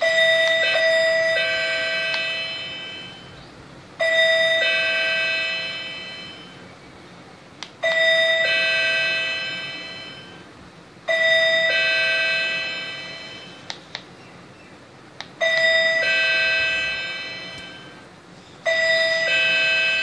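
Electronic two-note ding-dong chime of an LED token display, the alert that sounds each time the number changes at a press of the remote's up or down button. It sounds six times, about every three to four seconds, each chime stepping down in pitch and fading out, with a few faint clicks between.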